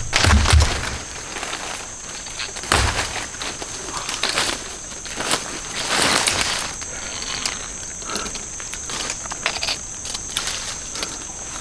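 Footsteps through leaf litter and undergrowth on a rainforest floor, irregular crackles and rustles, with a steady high-pitched insect drone behind them.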